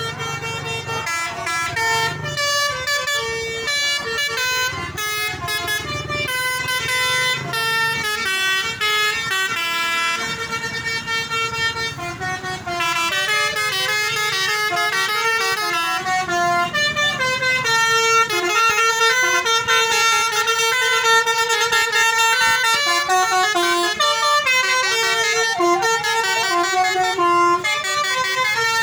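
Indonesian bus 'telolet' musical air horns playing tunes in a horn battle, steady loud horn notes stepping from pitch to pitch in quick melodic runs. A low rumble runs underneath for about the first half.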